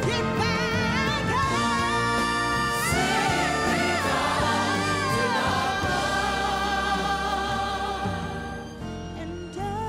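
A female lead singer belting with heavy vibrato and runs that climb and fall, over a backing choir and band playing sustained chords. The music thins out near the end.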